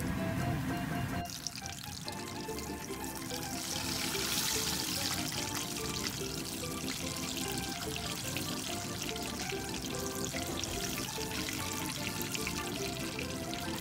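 Spring rolls sizzling as they deep-fry in hot oil, a steady crackle, under background music.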